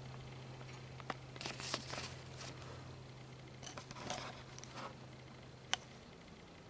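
Paper shopping bag and makeup packaging rustling and crinkling in two bursts as items are handled, with a couple of sharp clicks, over a steady low hum.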